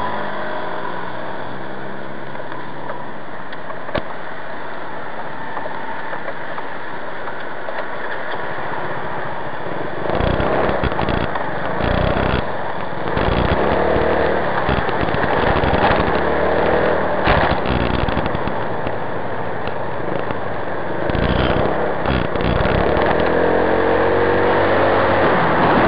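Motorcycle engine running at idle, then riding off from about ten seconds in, with wind buffeting the microphone. The engine note rises near the end as it speeds up.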